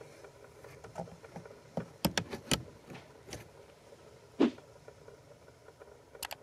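Scattered sharp clicks and light knocks: a quick run of several clicks about two seconds in, a single duller thump a little past the four-second mark, and a close double click near the end.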